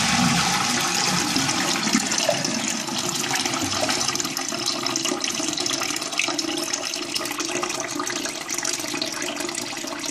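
A toilet flushing, heard with the cistern lid off: water rushes out of the tank, strongest at first, then settles into a steady splashing as water runs back in to refill the cistern.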